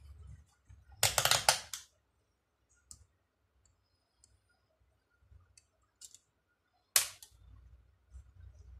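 A metal hand tool clicking on the rectifier bolts of a car alternator as they are undone: a rapid run of clicks about a second in, a few faint ticks, then one sharp click near the end.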